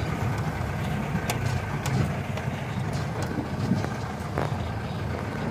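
Jeep engine running steadily under way, with a few sharp knocks and rattles over the rumble.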